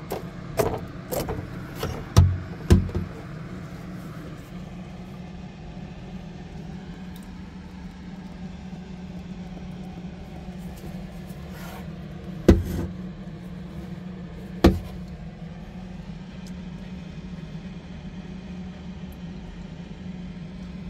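A steady low hum, with several sharp knocks in the first few seconds and two more about halfway through.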